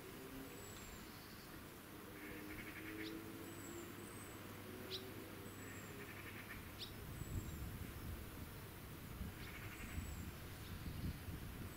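Quiet outdoor ambience: small birds give short, high chirps every second or so, with a few quick sweeping calls, and short buzzy trills come and go several times. Soft low crackling is heard in the second half.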